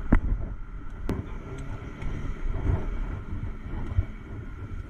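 Inside the cabin of a moving Chevrolet police patrol car: a steady low engine and road rumble, with a few sharp knocks and rattles, two near the start and one near the end.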